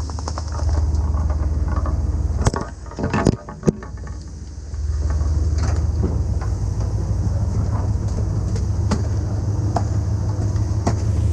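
Fishing boat's engine running with a steady low drone. About two and a half seconds in, a few sharp knocks come and the drone falls away for about two seconds before coming back.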